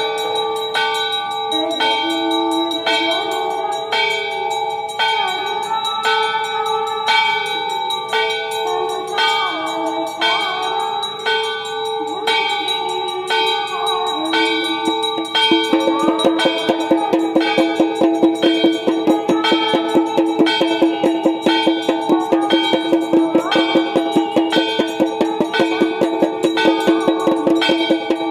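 Temple bells ringing for a Hindu aarti, struck in a steady rhythm about once a second over a sustained ringing tone. About halfway through the strokes quicken to several a second and grow louder.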